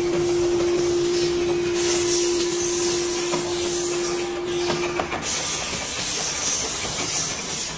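Factory machinery noise while cast aluminium parts are hand-finished: a steady hiss, with a steady hum that stops about five seconds in, and a few light clicks.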